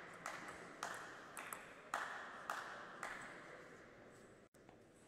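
Table tennis ball bounced repeatedly: about six sharp, ringing taps at roughly two a second, fading and stopping about three seconds in.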